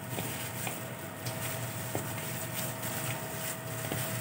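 A plastic-gloved hand mixing raw chicken wings in a stainless steel bowl: rustling and soft wet squishing with a few light clicks, over a faint steady whine.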